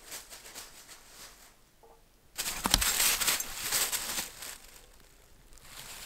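Dry fallen leaves rustling and crunching under a dog's paws as it scuffles through them, in uneven bursts, with one sharp knock about three seconds in.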